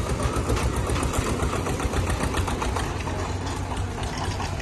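Heavy machinery engine running steadily with a low hum, with a fast, irregular clatter of knocks over it.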